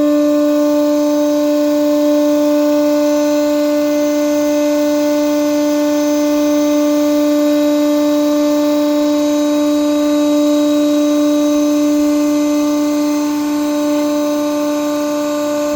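Cardboard baler's hydraulic pump and motor running under load as the ram drives down, a steady whine held on one pitch with overtones.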